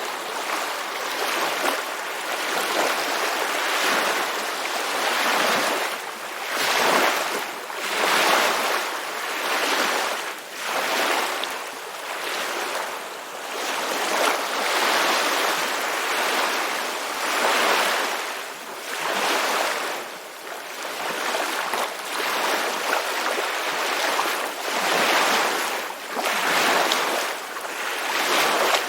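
Ocean surf washing in: a steady hiss of water that swells and ebbs every couple of seconds as the waves break and draw back.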